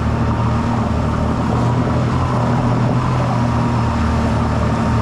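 A vehicle engine running steadily under way, a constant low drone over a rushing of wind and travel noise.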